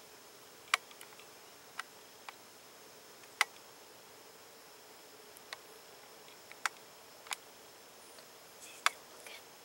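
Spike buck (white-tailed deer) feeding in leaf litter close by: a run of sharp, irregular clicks and cracks, about eight of them, over a faint steady drone of insects.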